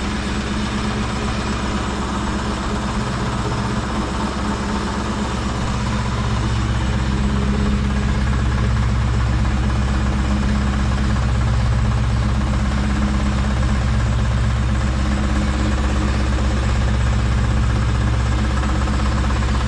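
Ford SN95 Mustang engine idling steadily through a catless exhaust, a little louder from about six seconds in.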